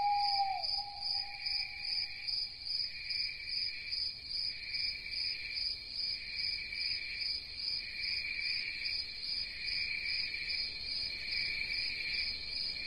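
Chorus of insects: a steady, shrill buzz that pulses about twice a second. Right at the start, a short call-like tone dips and then holds faintly for a couple of seconds.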